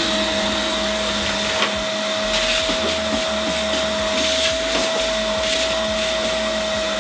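Stainless-steel drum wet-and-dry vacuum cleaner running steadily with a high whine, its hose nozzle working over a van's bare metal cargo floor, with a few brief rattles in the middle.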